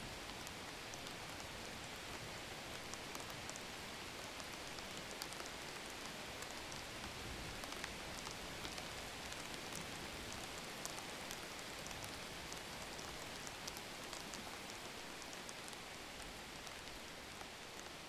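Steady rain falling, an even hiss with scattered sharp ticks of single drops, easing slightly toward the end.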